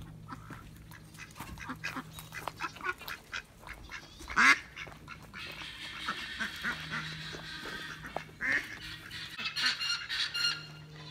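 Domestic ducks quacking and honking in quick runs of short calls, the loudest single call about four and a half seconds in.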